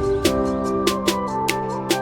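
Background music: held chord notes over a light, regular percussive tick.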